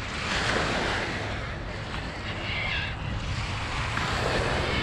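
Lake Michigan waves washing onto the beach, swelling and easing a few times, with wind rumbling on the microphone.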